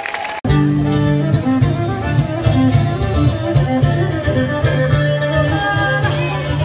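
Live Greek folk dance music: a violin plays the melody over guitar and a steady, strong bass. It cuts in suddenly about half a second in.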